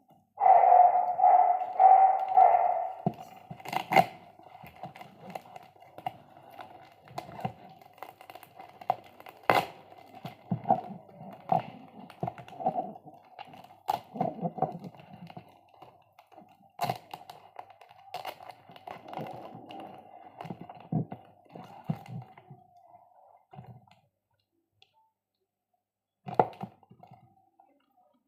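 Irregular clicks, knocks and thunks, like hard plastic parts being handled, over a steady mid-pitched hum. The hum is loudest in the first few seconds. Both stop for a couple of seconds near the end, and then there is one more knock.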